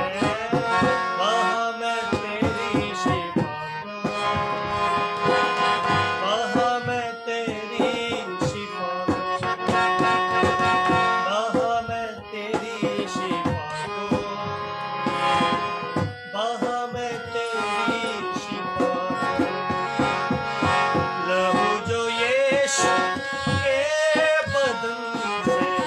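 Live Urdu Christian hymn: a man singing over a harmonium's sustained reed chords, with a dholak drummed throughout.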